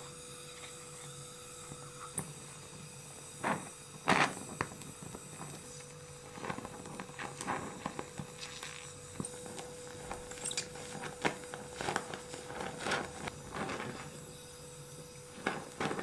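Gas torch flame hissing steadily while brazing, with a thin filler rod tapping and scraping at the joint in many small clicks and knocks; the sharpest knock comes about four seconds in.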